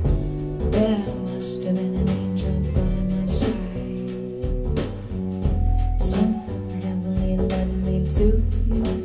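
Live band music played back through hi-fi bookshelf speakers: a prominent bass line under guitar, with steady drum hits.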